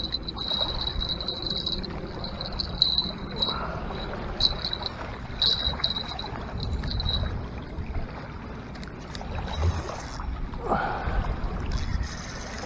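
Wind buffeting the microphone over water sloshing at a rocky lake shore, with a few short louder splashes. A steady high-pitched whine runs through the first half and stops about seven seconds in.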